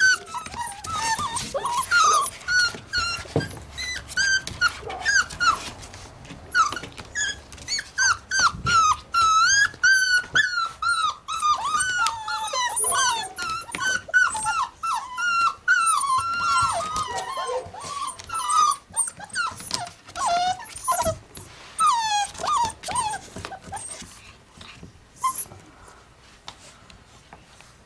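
Young puppies whining and yipping in many short, high-pitched, wavering calls, often overlapping. The calls thin out and fade over the last few seconds.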